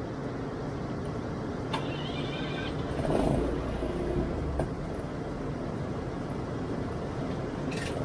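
Steady low outdoor rumble, with a few light metallic clanks from the fuel transfer trailer's compartment and hose being handled.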